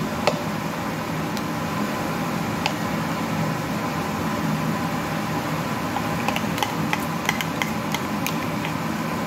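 Steady hum of a running kitchen appliance motor. In the second half a run of light clicks and scrapes as a metal spoon works mayonnaise into a plastic measuring cup.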